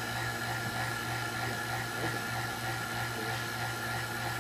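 Steady low hum with higher steady whines from a running Farnsworth-Hirsch fusor rig: its 15 kV neon sign transformer overdriven at 130% through a variac, and the vacuum pump that keeps the chamber pumped down.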